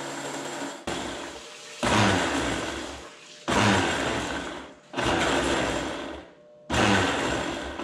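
Countertop blender blending a liquid chili-and-citrus marinade, running in several short bursts that each start suddenly and fade.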